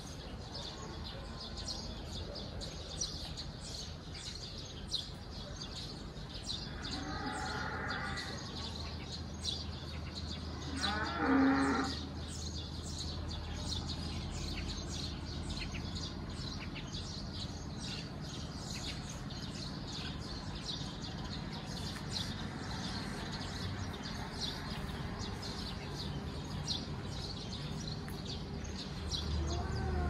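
Small birds chirping in quick, short notes throughout. A cow moos twice, once about seven seconds in and again, louder, about eleven seconds in.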